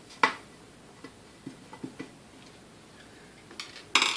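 A few sharp clicks and light knocks of hand tools on the metal housing of a vintage KitchenAid stand mixer being taken apart. Near the end comes a short clattering rattle as tools on the workbench are handled.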